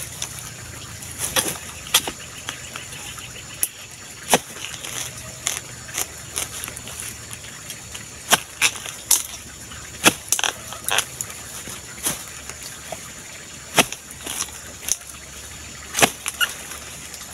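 Long-handled oil palm harvesting chisel chopping into the stalk of a fruit bunch on a young palm: repeated sharp strikes, irregular, about one a second.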